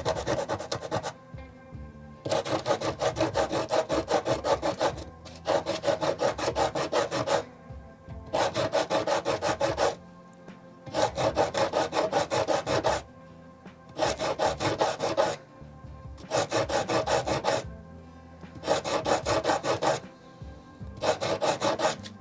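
Sandpaper rubbed by hand against the torn-off tip of a wooden spindle to bring it back to a point. It comes in about nine bursts of quick back-and-forth strokes, each lasting a second or two, with short pauses between them.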